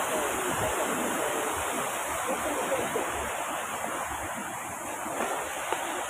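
Artificial waterfall running steadily: a constant rush of falling water.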